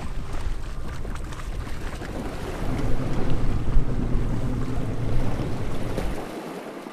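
Wind buffeting the microphone aboard a small open boat at sea, with the sound of choppy water around the hull; the low rumble cuts off sharply near the end.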